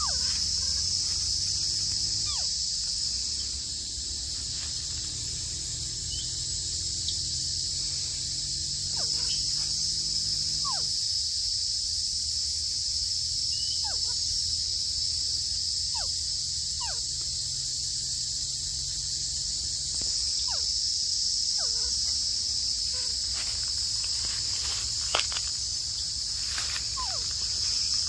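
Steady, high-pitched insect chorus, with scattered short, falling chirps from another animal. A low hum sits underneath for the first ten seconds or so.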